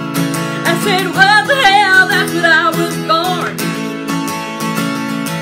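Acoustic guitar strummed steadily, with a woman singing along to it. Her sung line comes in about a second in and ends after about three and a half seconds, and the guitar strums on alone.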